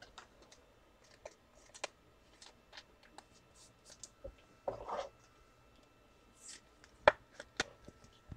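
Faint handling noises: scattered light clicks and taps, with a brief rustle about five seconds in and two sharper clicks near the end.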